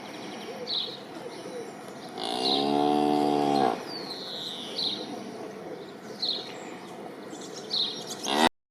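A cow moos once, a single level call of about a second and a half. Birds chirp on and off around it, and the sound cuts off suddenly near the end.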